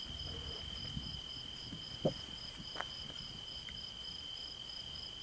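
Crickets chirring steadily in a high, even trill, with a single soft knock about two seconds in.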